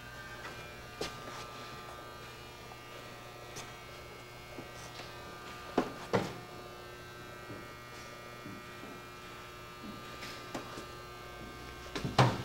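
Steady electrical hum with a couple of soft knocks about six seconds in.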